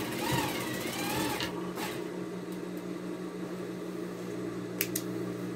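Electric sewing machine stitching a quilting line through fabric and batting in a quick run of about a second and a half, its motor pitch dipping and rising, then stopping. A steady low hum and a couple of light clicks follow.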